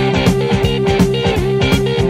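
Guitar-led rock music with a steady beat.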